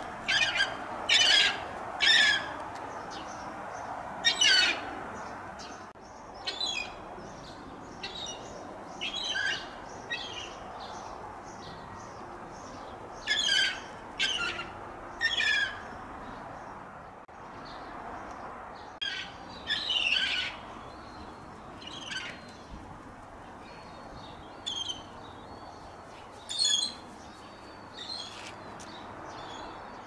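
Young gulls calling: short, harsh squawks, about one a second at first, then scattered singly and in small groups.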